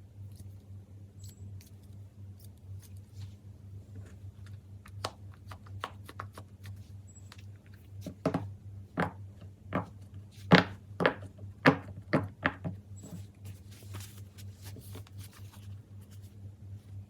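Hands handling plastic fidget toys: light clicks and taps, with a run of louder, sharper clicks about halfway through, followed by some soft rustling. A steady low hum runs underneath.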